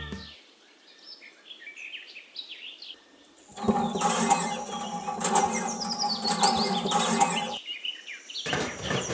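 Small birds chirping in short, quick falling notes, faint at first and then louder and busier over a steady low hum from about three and a half seconds in, with a short burst near the end.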